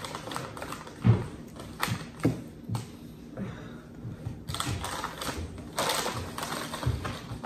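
Irregular taps and clicks of eating utensils against a bowl and the tabletop as cream cheese is scooped and pushed into hollowed jalapeño peppers, with some rustling a little past the middle.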